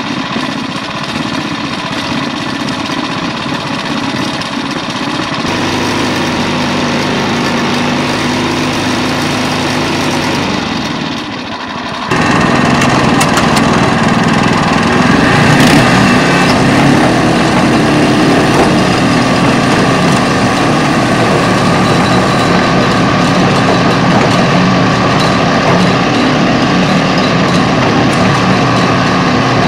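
Pasquali SB30 two-wheel tractor's engine running as it pulls a trailer. About twelve seconds in, the sound jumps abruptly louder and closer to the engine, then runs steadily as the tractor drives on.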